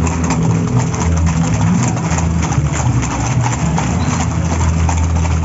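Hooves of many horses clopping on a paved street as a group of riders passes, a quick irregular patter of hoof strikes, over a steady low hum.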